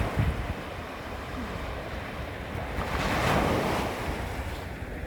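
Small sea waves lapping and washing against a beach, one wave swelling and breaking louder about three seconds in, with wind rumbling on the microphone.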